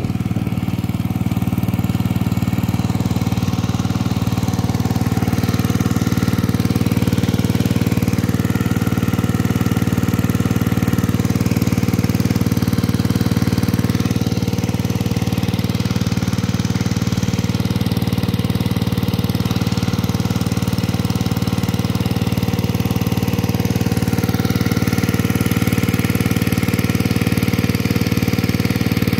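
Portable engine-driven water pump running at a steady speed, its small engine chugging evenly while it pumps water through a lay-flat hose to flood a rice paddy.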